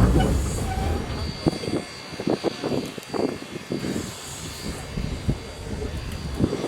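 A train running, a rough low rumble with irregular knocks and clanks and a couple of brief hisses.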